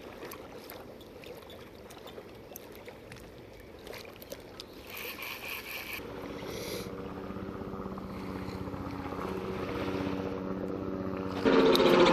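Engine of a passing motorboat, faint at first, then growing steadily louder from about halfway and much louder just before the end.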